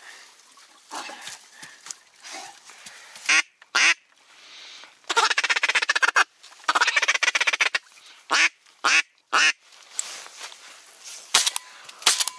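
Ducks quacking: a string of loud quacks, with a rapid run of calls about five seconds in.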